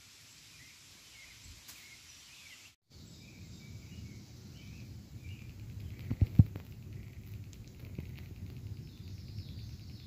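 Garden ambience: faint bird chirps over a low rumble, with a couple of sharp thumps about six seconds in. The sound drops out briefly just before three seconds.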